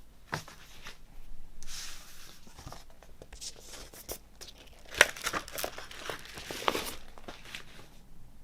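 Vinyl record packaging rustling and crinkling as it is handled, with scattered clicks. A sharp click about five seconds in is the loudest sound.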